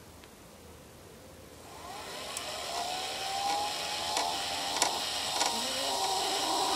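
A small geared DC motor salvaged from a printer starts up about two seconds in, its whine rising in pitch and then running steadily with a hiss, as it turns the threaded-rod shaft to pay out the line and close a chicken-coop pop-hole door. A few sharp ticks sound while it runs. On closing the motor works lightly, its current limited by a resistor.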